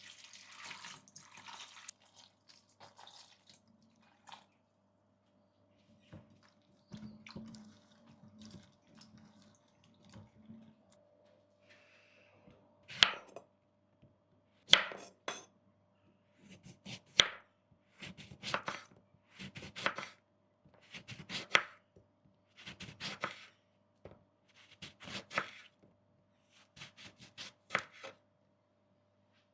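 Kitchen work sounds: a short faint splash of water, then a run of sharp knocks and clatters that recur about every second and a half over the second half.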